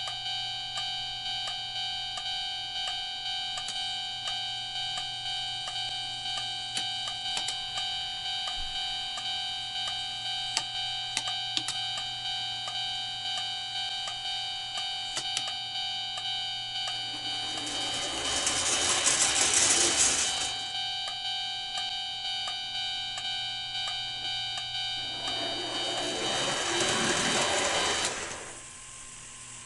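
Electronic warning bell of an O-gauge model railway crossing ringing in steady repeated strokes, stopping shortly before the end. Twice, about two-thirds through and again near the end, a loud rushing noise lasting about two seconds rises over the ringing.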